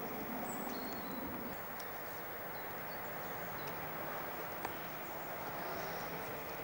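Outdoor street background: a steady, even hush with a few short, high bird chirps scattered through it.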